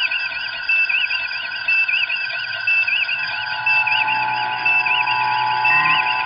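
Synthesized sci-fi electronic sound effect: a warbling chirp repeating about once a second over a bed of steady electronic tones.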